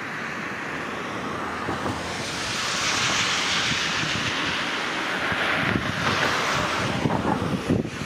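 Flowing river water, a steady hiss that swells a couple of seconds in, with wind buffeting the microphone in irregular low gusts in the second half.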